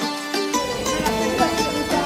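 Background music carried by a plucked string melody. About half a second in, outdoor noise and voices come in underneath it.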